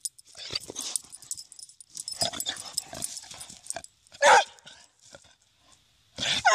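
A vizsla barking while play-bowing, inviting play: one short loud bark about four seconds in and another near the end.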